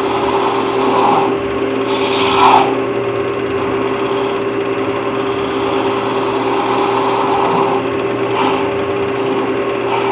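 Woodworking lathe running with a steady hum while a hand-held turning tool cuts the spinning wood, giving short louder scraping passes several times, the loudest about two and a half seconds in.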